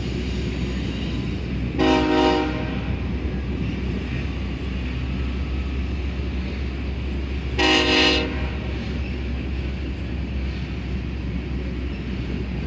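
Canadian Pacific freight locomotive's horn sounding two short blasts about six seconds apart, over the steady rumble of a freight train's cars rolling past.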